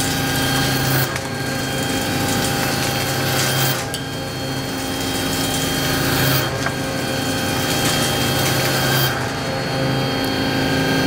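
Accupro indexable milling cutter in a CNC machining centre cutting a metal block: a steady spindle hum and whine under the cutting noise, the tone shifting every two to three seconds.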